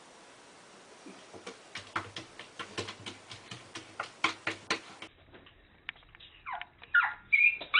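Irregular sharp taps and clicks of claws against the glass of a lizard terrarium. Then, near the end, a small dog gives several short, high-pitched yips that bend in pitch, louder than the taps.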